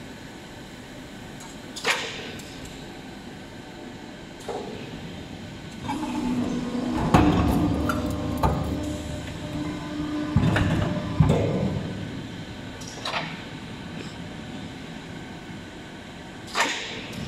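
150-ton multi-cylinder hydraulic deep-drawing press line cycling. It gives single sharp clacks every few seconds. About six seconds in there is a louder stretch of some six seconds with a steady hum and several heavy thumps.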